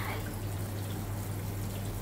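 Kitchen tap running a steady stream of water onto diced pomelo pith in a plastic colander in a stainless steel sink, rinsing the pith, with a steady low hum underneath.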